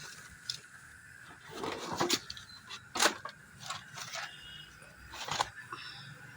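A few sharp clicks and knocks with some scraping between them, as tools and plastic dashboard parts are handled while the AC cooling coil housing is opened, over a faint steady hum.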